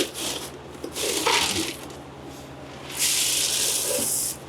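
Dry alfalfa feed being poured from the bag into a feed tub, making a hissing rush: a short pour about a second in, then a longer steady pour that cuts off near the end.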